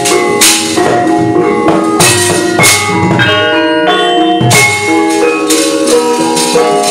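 Javanese gamelan music: metallophones ring out held tones, punctuated by repeated sharp, bright metallic clashes and low drum strokes.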